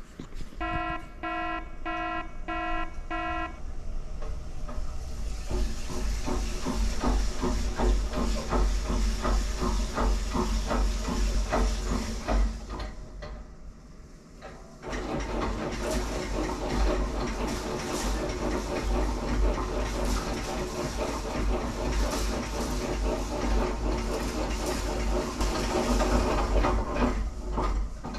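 A specific-gravity separation (jig) demonstration machine. It gives five short electronic beeps, then water churns and hisses in a clear column of beads over a low machine rumble, with many small irregular clicks from the tumbling beads. The churning drops away briefly about halfway through, starts again, and stops near the end.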